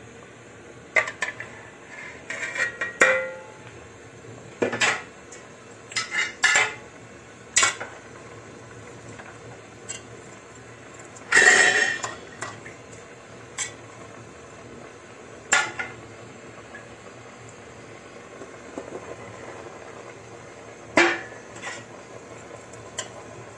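Scattered clinks and knocks of a spatula and vegetables against a stainless steel cooking pot as chopped vegetables are added and stirred, with a longer, louder clatter about eleven seconds in.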